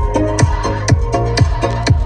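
Bass-heavy electronic dance music played through Pioneer car speakers (TS-G160C-2 component set and TS-A6968S 6x9s) in a speaker sound test: a deep kick drum thumps about twice a second under repeating synth chords.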